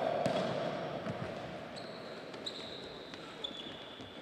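Futsal ball kicks and bounces echoing in a sports hall, with short high squeaks of players' shoes on the wooden court. The echo of a loud shout fades out during the first second.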